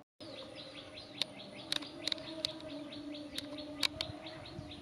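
A bird chirping in a quick run of short, high notes, with several sharp ticks mixed in and a faint steady hum underneath.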